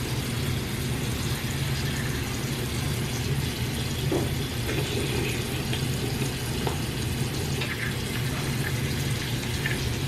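Bathroom sink tap running steadily into the basin.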